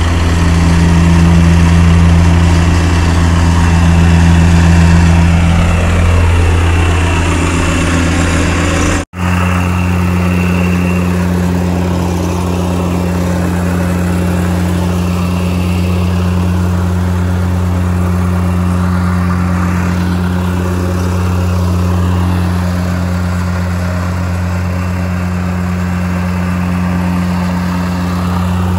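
Petrol-engined vibratory plate compactor running on sand fill, a loud, steady engine drone that cuts out for an instant about nine seconds in.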